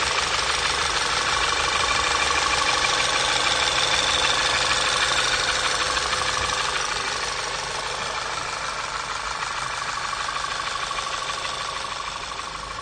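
Volkswagen 2.0 TSI (EA888, CCTA) four-cylinder engine running with a rapid, steady tah-tah-tah knock, a sound the mechanics take to be almost always piston trouble. The teardown put it down to a damaged piston in the third cylinder. The engine gets slightly quieter about halfway through.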